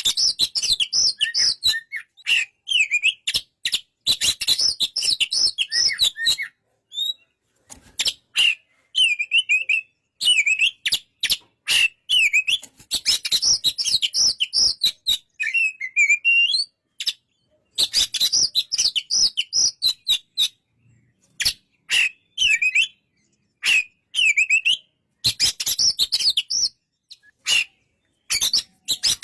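Oriental magpie-robin (kacer) singing: loud phrases of rapid, varied chirps and whistles, each lasting one to three seconds, broken by short pauses.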